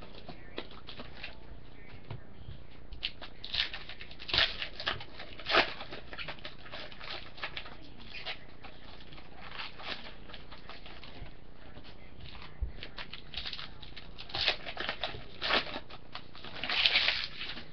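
Crinkling and rustling of foil trading-card pack wrappers and cards being handled, in short scattered bursts with quieter stretches between.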